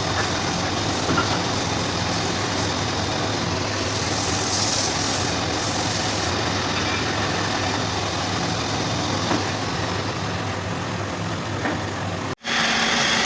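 A machine running steadily: a constant low hum under a broad hiss. About twelve seconds in it cuts off abruptly and a different, steadier motor sound with a single humming tone begins.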